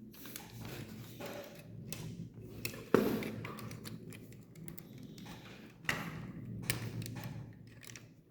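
Plastic Lego pieces being handled and pressed together: a run of small clicks and taps over a low rustle. A sharp click comes about three seconds in and another near six seconds.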